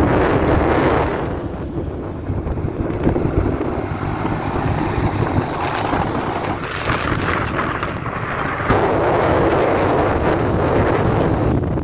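Wind buffeting the microphone of a camera riding on a moving motorcycle, a loud, shifting rush of noise with the bike's engine and road noise underneath.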